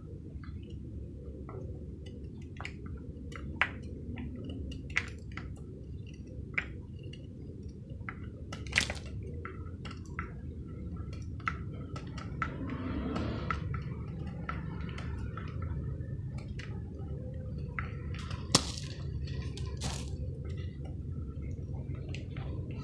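Serrated knife scraping and shaving soaked chalk, with wet crumbling, scattered sharp clicks and drips falling into a basin of water, over a steady low hum.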